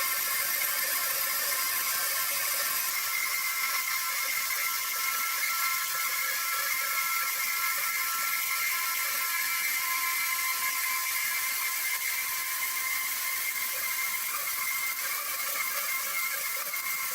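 Sawmill machinery running: a steady high-pitched whine with a hiss over it and very little low rumble.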